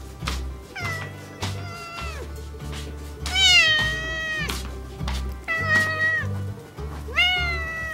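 A tabby cat meowing four times, each call rising and then holding, the second one the loudest. Background music with a steady beat plays under it.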